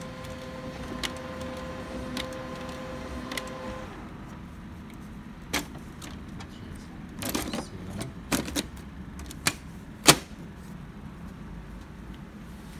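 HP Color LaserJet CP1025nw colour laser printer's internal motor running with a steady hum and a light click about once a second, stopping about four seconds in. Then a scatter of plastic clicks and knocks as the printer's top cover is opened and handled, the loudest about ten seconds in.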